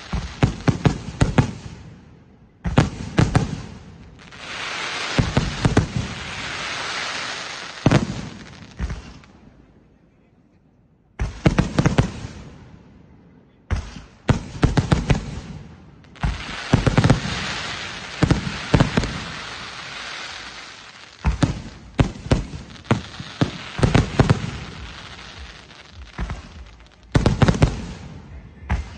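Aerial firework shells bursting in rapid volleys of sharp bangs, with long stretches of hissing from the falling sparks between the volleys. There is a brief lull about a third of the way in.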